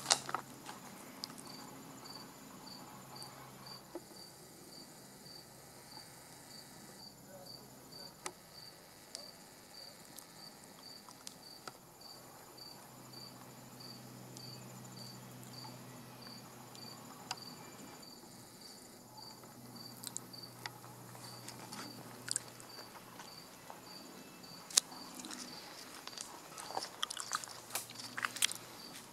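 An insect chirping in a steady, even rhythm, about two high chirps a second, with scattered sharp clicks and crackles, thickest near the end.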